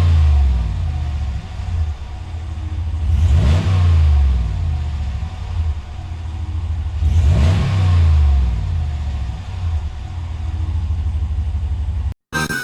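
Ram 1500's 5.7 HEMI V8 through its stock exhaust, idling and blipped twice, each rev rising and falling back to idle, with the tail of an earlier rev fading at the start. The sound cuts off suddenly just before the end.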